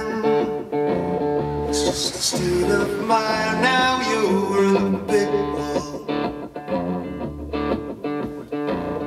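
Background music: a song led by guitar.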